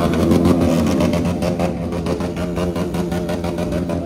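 Motorcycle engine running, its pitch wavering up and down.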